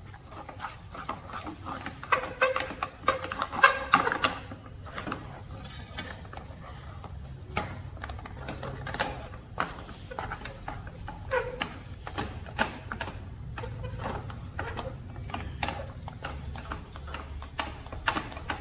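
A spatula stirring thick jaggery-and-flour dough in a steel pan, knocking and scraping against the pan in quick, irregular strokes. A low steady hum runs underneath.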